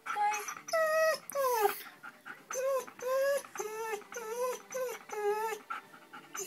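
Siberian husky whining and crying: a string of about seven short, wavering high whines, one sliding down in pitch about a second and a half in.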